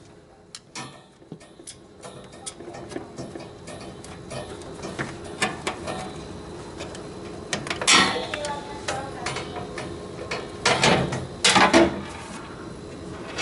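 Hand-tool handling noise at the back of a water cooler: a screwdriver and plastic tubing and fittings clicking and tapping, with louder scraping knocks about eight seconds in and again around eleven to twelve seconds.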